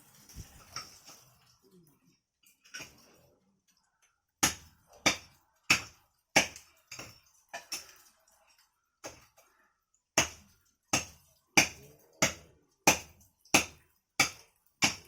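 A run of sharp knocks, about one every two-thirds of a second, starting about four seconds in after a few faint clicks, with a short pause in the middle.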